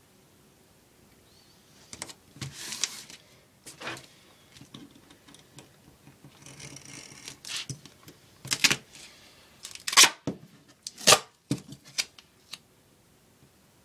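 Duct tape being worked by hand: pulled off the roll in short ripping stretches and handled, with several sharp clicks in the second half.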